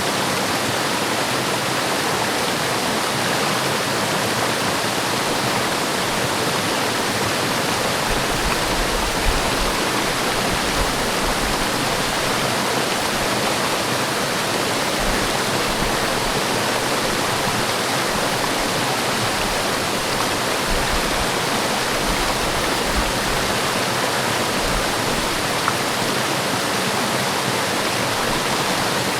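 Forest waterfall pouring steadily, an even rush of falling water.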